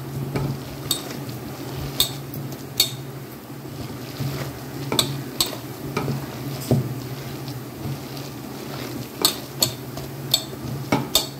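A hand kneading and mixing coarse chana dal vadai batter in a steel bowl: a soft rustle of the batter with about ten sharp clicks against the metal, over a steady low hum.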